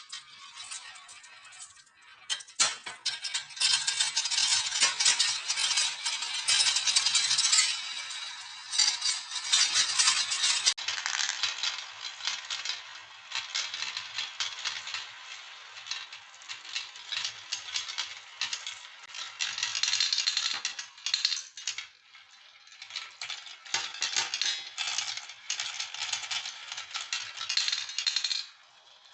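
Many marbles rolling and clattering along a marble run's tracks: a dense rattle of small clicks that swells and eases, thinning out briefly about two seconds in and again about twenty-two seconds in.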